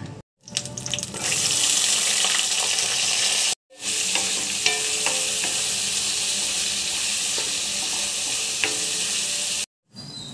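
Spices, then chopped onions and green chillies, sizzling in hot oil in a metal kadai, a steady frying hiss with occasional light taps of a wooden spatula as they are stirred. The sizzle builds up in the first second or so and breaks off briefly twice.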